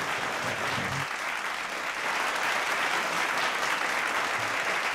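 Audience applauding: many people clapping together in a steady, sustained round of applause.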